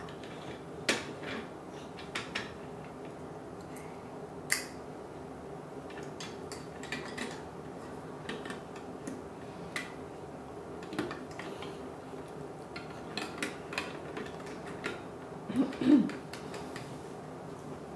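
Plastic Duplo bricks clicking and knocking against each other and on a wooden table as a toddler fits them onto a toy truck: scattered sharp clacks every second or so, with a louder cluster of knocks near the end.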